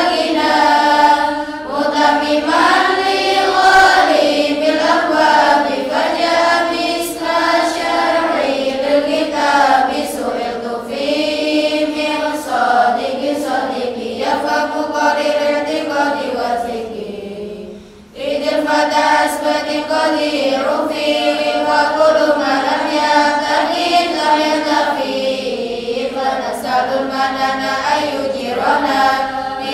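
A large group of girls chanting rhymed Arabic grammar verses together in unison to a sung melody (lalaran recitation), with one brief pause for breath a little past halfway.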